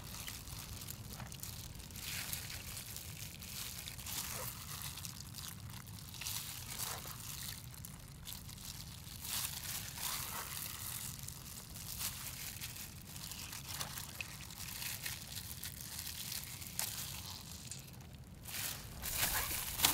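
Irregular rustling and crinkling, as of material or gear being handled, with a busier stretch near the end, over a steady low hum.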